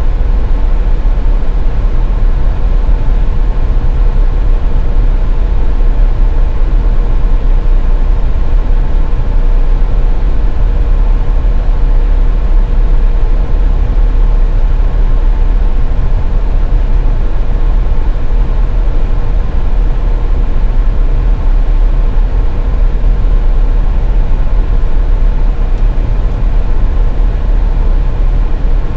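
A car driving on the highway: a steady, loud low rumble of road and engine noise, with a faint constant hum on top.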